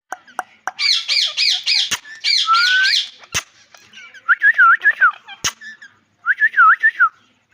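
Parrot calling: a fast run of wavering high chirps, then a rising whistle, then two bouts of lower, repeated swooping notes. A few sharp clicks fall between the calls.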